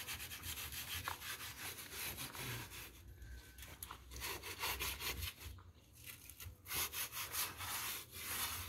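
Hands kneading nixtamal corn masa in a plastic bowl: a run of short rubbing, scraping strokes of the dough against the bowl, with a couple of brief lulls midway.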